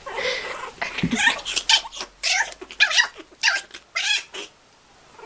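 Kitten crying out in a play fight with a puppy: a rapid run of short, high-pitched yowls starting about a second in.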